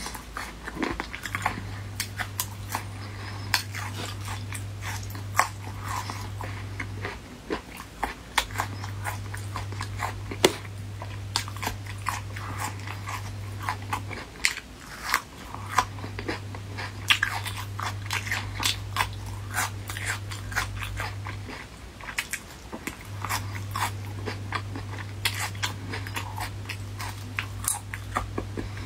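Close-up eating sounds: a person biting and chewing spicy sauced strips by hand, with many sharp mouth clicks and crunches. Under it runs a steady low hum that cuts out briefly every seven seconds or so.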